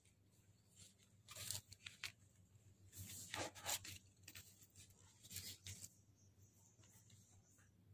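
Handling noise: stereo wiring cables and a plastic dash frame rustling and scraping as they are moved about. It comes in three short scratchy bursts, the loudest about three and a half seconds in.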